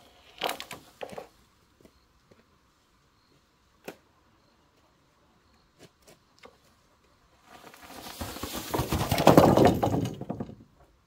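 A long cut bamboo pole being dragged down a grassy, brushy bank: a few scattered knocks and clicks, then a loud rustling and crackling that builds over a few seconds as the pole slides through the grass and brush, and stops shortly before the end.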